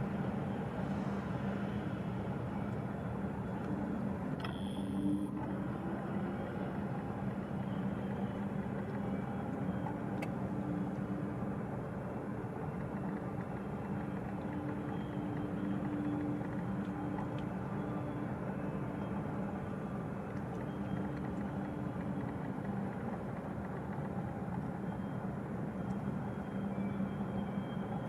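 Large container ship's engines heard as a steady low drone with a constant hum as the ship comes into harbour.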